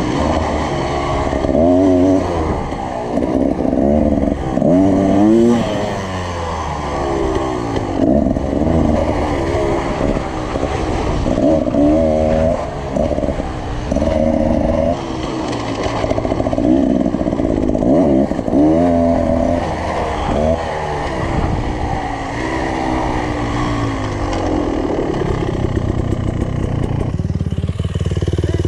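2019 Beta Xtrainer's two-stroke engine ridden hard on a dirt motocross track, revving up and down over and over through throttle and gear changes. Near the end it settles to a steadier, lower running as the bike slows.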